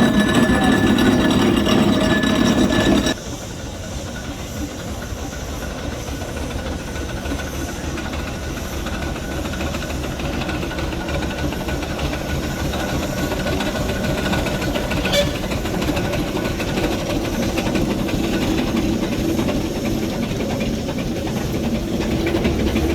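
Steam engines running in a parade, with a steady steam hiss and mechanical running noise. About three seconds in the sound drops abruptly to a quieter, steady hiss, and there is a single sharp click about fifteen seconds in.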